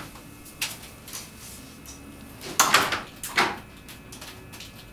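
An office door being opened and shut, with a few light footsteps and clicks; two louder knocks come a little past halfway, less than a second apart.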